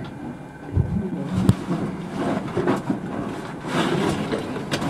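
Caving gear and suit scraping and rustling against rock as a caver moves through a narrow passage, with a few knocks, the sharpest about a second and a half in.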